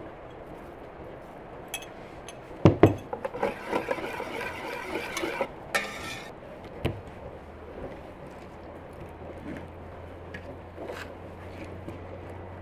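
Wire whisk beating a thin flour-and-water batter in an enamel bowl, rattling and clinking against the bowl for a few seconds after two sharp metal clinks. It then goes quiet except for a faint low hum.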